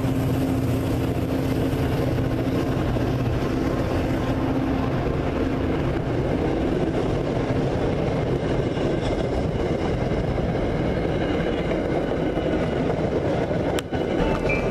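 MBTA commuter rail passenger coaches rolling past close by, a steady rumble and clatter of steel wheels on the rails that lasts until the last car clears.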